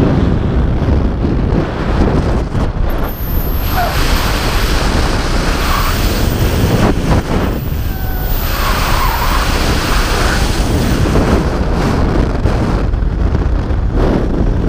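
Heavy wind rushing and buffeting over a body-mounted camera's microphone as the wearer falls at speed on a cable-controlled tower jump.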